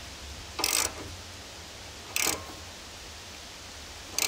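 Socket ratchet clicking in short bursts about every one and a half seconds, three times, as it is swung back and forth to turn the forcing screw of a bearing separator puller drawing a stuck bearing race off a trailer axle.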